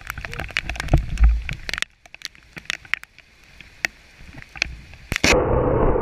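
Wind and rain buffeting a phone's microphone, with handling crackle and clicks. About five seconds in comes a sharp, loud crack of a nearby lightning strike, followed by a loud, steady rushing noise.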